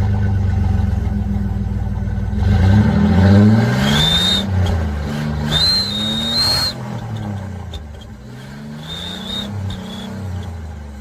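Car engine revving with an aluminium turbo whistle fitted in its exhaust: the engine note climbs and falls several times, and a thin high whistle sounds four times, mostly as the revs peak.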